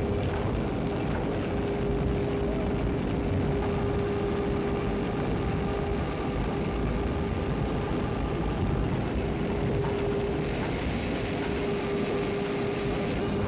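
Electric winches hauling the blast furnace: a steady mechanical drone with a constant hum-like tone running through it, a brighter hiss joining about ten seconds in.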